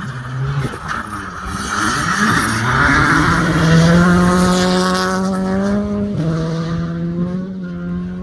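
Rally car passing at speed, its engine pulling up through the revs with a quick upshift about six seconds in. A rush of tyre noise comes with it, loudest about four seconds in as it goes by.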